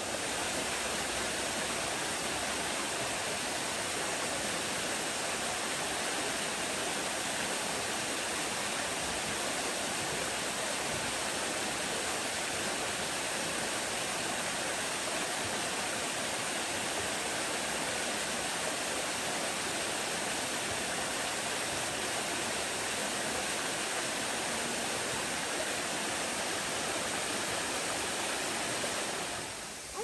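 Small waterfall splashing into a rocky pool: a steady, even rush of falling water that cuts off just before the end.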